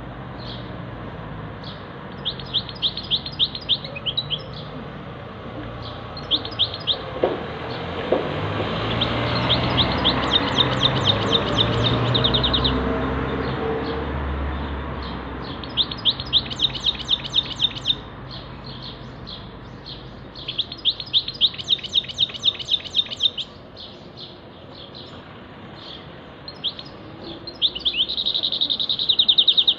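Caged songbird singing in quick trilled phrases of rapidly repeated high notes, each phrase a second or two long with short pauses between, the loudest phrase near the end. In the middle a broad rushing rumble swells and fades under the song.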